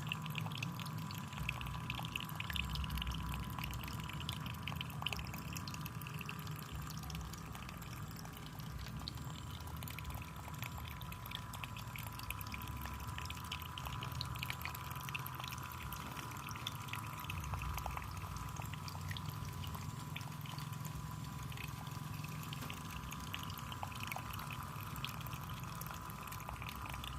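Small artificial waterfall in a mini aviary, water splashing and trickling steadily with many small drips, over a thin steady tone.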